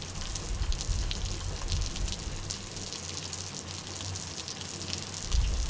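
Water from a garden hose sprayed from above, spattering steadily onto a rabbit-fur felt hat and a wet wooden deck, sounding like heavy rain. A short low rumble near the end is the loudest moment.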